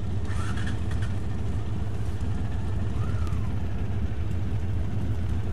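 Motorcycle engine idling steadily with an even low rumble.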